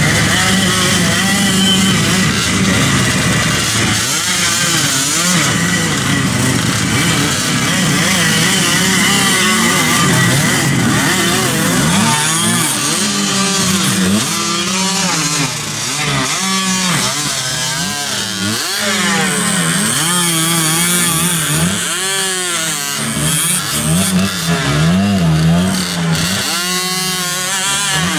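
Several classic two-stroke enduro motorcycles climbing a steep, muddy hill, their engines revving up and down over and over as the riders fight for grip.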